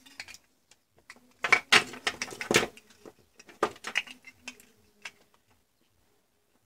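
Plastic clicking and rattling as a circuit board is worked out of a black plastic power-supply case: a dense run of clattering clicks over about a second, starting about a second and a half in, then a few scattered single clicks.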